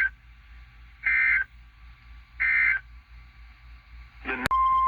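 Emergency Alert System data bursts of the end-of-message code: short, buzzy two-tone warbles repeated about every 1.3 seconds, marking the close of a weather alert. Near the end there is a click, and then a steady single-pitch alert tone near 1 kHz begins, the NOAA Weather Radio 1050 Hz warning tone.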